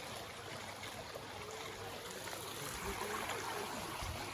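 A forest stream flowing steadily, heard as an even, fairly quiet rush of running water.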